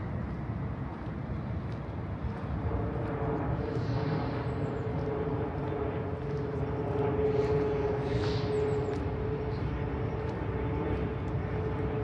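Engine drone: a steady hum that swells to its loudest a little past the middle and then eases, over the continuous noise of an outdoor city.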